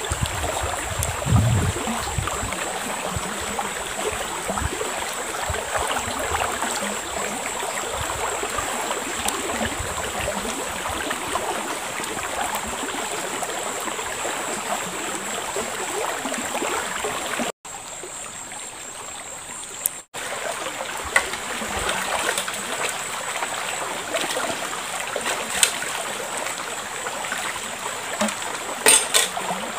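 Shallow river flowing steadily, a continuous rush of water, with a few brief louder splashes.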